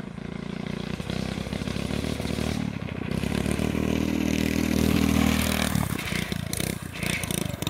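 Motorised drift trike's small engine running under throttle while its sleeved rear wheels slide and scrape over asphalt. The engine note builds to its loudest about five seconds in, then falls away.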